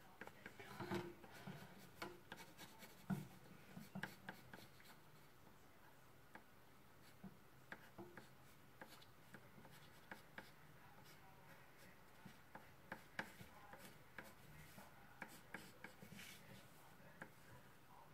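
Pencil sketching on paper: faint, irregular scratchy strokes and light taps.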